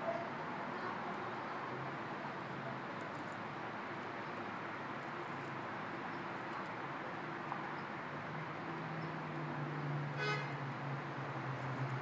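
Steady outdoor traffic noise, with a low vehicle engine hum coming in about two-thirds of the way through and a brief horn-like toot about ten seconds in.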